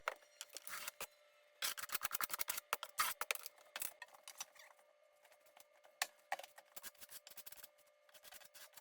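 Faint clicks and scrapes of ceramic subway tiles being pressed into place on the wall, in a quick cluster in the first half and then sparser, over a faint steady hum.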